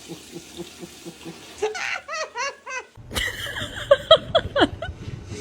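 Laughter: a quick run of short, evenly spaced 'ha' syllables. About three seconds in the sound changes abruptly, and more laughter follows, its syllables sliding down in pitch.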